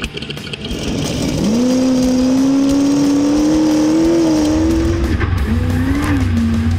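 Desert race car engine pulling hard, its pitch climbing steadily for several seconds. It drops about five seconds in, as at a shift or a lift off the throttle, then holds steady.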